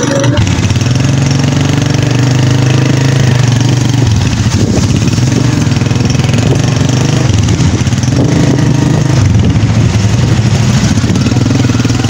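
Small motorcycle engine running while riding, its speed rising and falling a little a few times.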